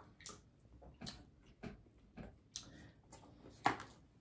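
Quiet eating sounds: a string of soft, irregular clicks and smacks, the sharpest near the end.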